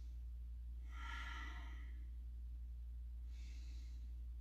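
A woman's audible breathing while holding a yoga boat pose: one breath about a second in and a shorter one near the end, over a steady low hum.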